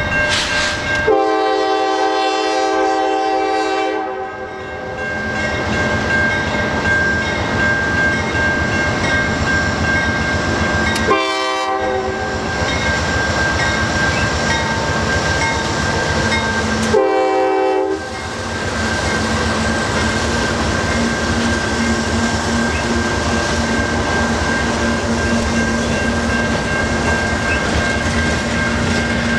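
Freight train led by two GE AC4400CW diesel locomotives sounding its horn in three blasts: a long one about a second in and two short ones later, with the locomotives and freight cars rolling past with steady wheel clatter.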